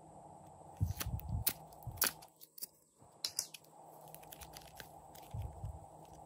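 A round plastic mold being handled and pressed: several sharp plastic clicks and taps in the first couple of seconds and again a little past the middle, with low soft thuds from blue clay being pressed, pulled out and stretched.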